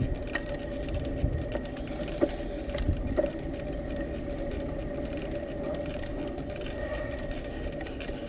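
Bicycles rolling along a paved bridge path: a steady low rumble with a faint constant whine and a few small clicks and rattles.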